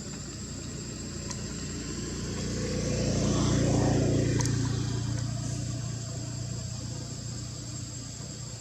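A motor vehicle passing by, growing louder to a peak about four seconds in and then fading, over steady high-pitched insect buzzing.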